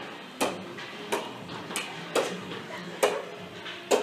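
Pickleball paddles striking a plastic pickleball in a short rally to keep it in the air: about six sharp hollow taps, one every half to one second, each ringing briefly off the hard hallway walls.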